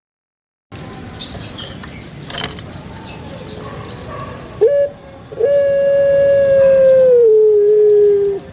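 A dog howling: after a short yelp, one long howl held on a steady pitch for about three seconds, which drops a step near the end before stopping.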